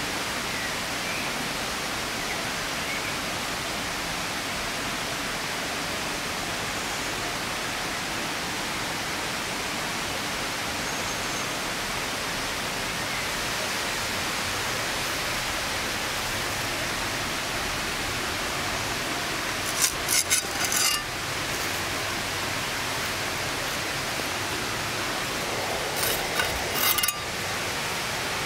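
A steady, even hiss of outdoor background noise, broken by two short bursts of sharp clicks and clatters about two-thirds of the way in and again near the end.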